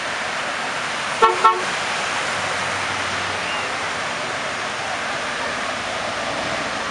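A car horn gives two short toots in quick succession, over the steady noise of cars rolling slowly past on the street.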